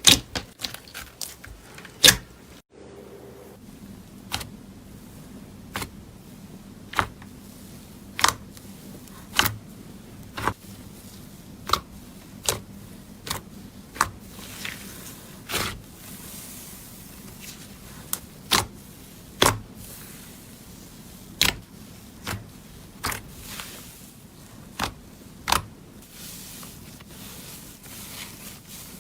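Slime being pressed and worked by hand, making sharp clicking pops about once a second over a faint steady hum.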